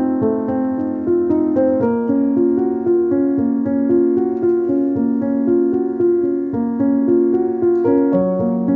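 Background music: a soft piano piece with gently changing chords.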